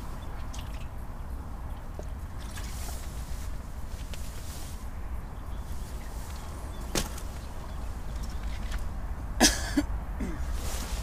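Steady low outdoor rumble with two sharp clicks, one about seven seconds in and a louder one near the end.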